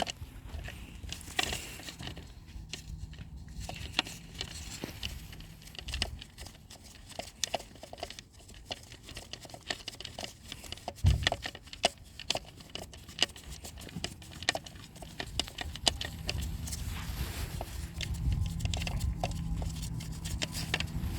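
Scattered light metallic clicks and taps from hand work on a gearbox's clutch release bearing and its bolts, with one louder knock about eleven seconds in. A faint steady hum comes in near the end.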